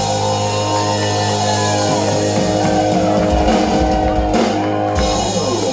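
Live rock band music: a sustained, loud chord with electric guitar notes bending up and down over it.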